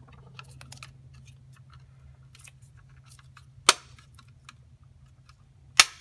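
Plastic housing of a 3A NUE smart wall switch being handled, with light clicks and taps. Two sharp plastic snaps come, one near the middle and one near the end, as the cover is clipped back onto the switch.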